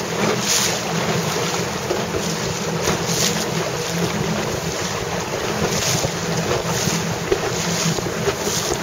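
Wind buffeting the microphone, swelling in gusts, over a steady low hum.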